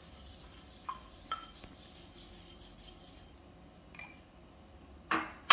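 Puffed rice poured from a ceramic bowl into a glass mixing bowl: a faint rustle with two light ringing clinks of bowl against glass about a second in. Near the end, two loud sharp knocks against the glass bowl.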